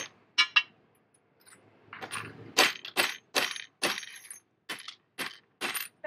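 Claw hammer striking and breaking ceramic teacup pieces into small shards on a board: a string of sharp strikes, a few early on and then about two a second.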